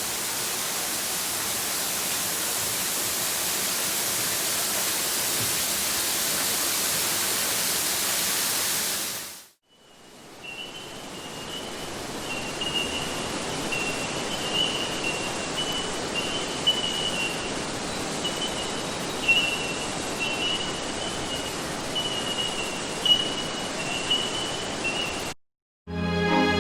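Waterfall rushing: a steady, loud hiss of falling water. About a third of the way in it cuts out, and a quieter water noise follows with a high, thin call that keeps breaking off and starting again, until a second cut near the end.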